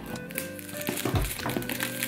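Fingernails picking and scratching at the plastic shrink-wrap on a cardboard box, with light crinkling of the film, over background music with a slow drum beat.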